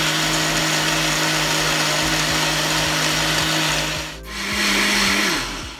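Countertop blender motor running steadily, blending a thin yogurt lassi with roasted cumin. About four seconds in it briefly drops off, then runs again at a slightly higher pitch for about a second before spinning down and stopping near the end.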